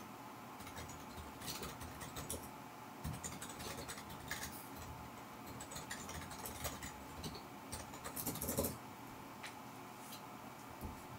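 Brown paper bag crinkling under a cat sitting in it: scattered soft crackles and ticks as it shifts, with a louder cluster of crackling about eight seconds in.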